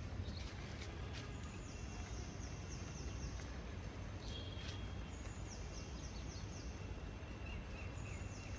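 Faint outdoor ambience with birds chirping in the distance: short runs of quick, high, falling notes, over a low steady rumble.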